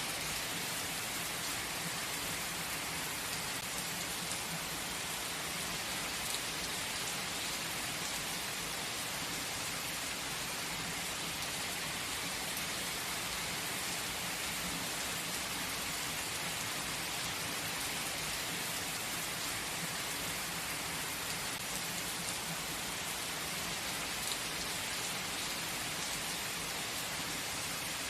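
Steady light rain falling, an even hiss with the odd faint drop tick.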